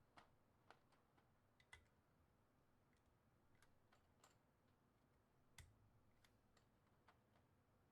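Faint, irregular keystrokes on a mechanical keyboard fitted with Maxkey SA-profile keycaps: a dozen or so separate clicks at uneven spacing, the loudest about two seconds in and again near the middle.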